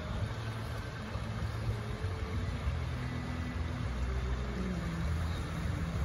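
Outboard motor of a pontoon boat running at low speed, a steady low hum that grows slightly louder as the boat approaches.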